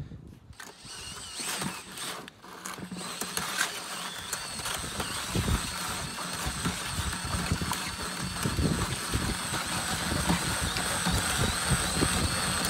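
DeWalt cordless drill with a paddle mixer running steadily, churning parge mix in a plastic bucket, with irregular low knocks underneath. The motor comes on about half a second in and keeps a steady whine.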